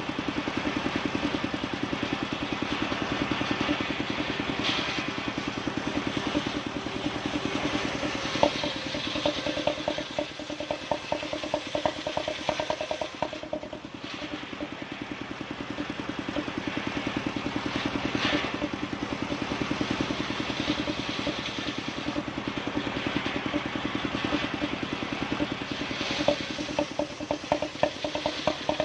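Small engine of a wood-sawing machine running steadily with an even, fast pulse. A rattling layer comes in for several seconds about eight seconds in and again near the end.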